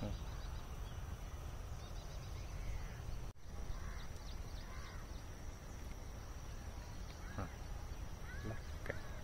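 Open-field ambience: wind rumbling on the microphone, a steady high thin tone, and a few short bird chirps, most of them near the end. The sound drops out briefly at a cut about a third of the way in.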